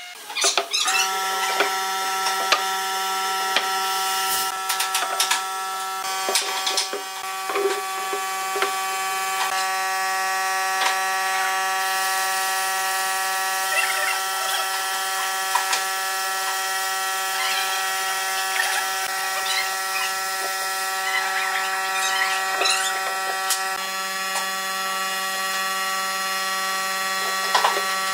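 A steady buzzing hum held on one pitch, with scattered light taps and scrapes as glue is brushed onto pine boards.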